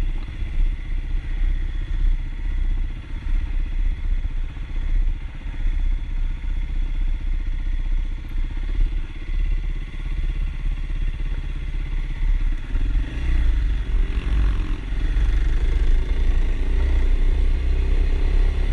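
Kawasaki KLX dirt bike's single-cylinder four-stroke engine running at low, uneven trail throttle, then picking up revs and getting louder about two-thirds of the way through.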